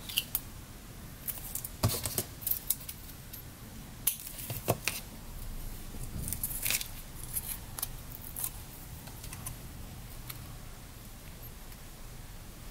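Paper and tape being handled and pressed onto a card: scattered light clicks and crackles with short gaps between them.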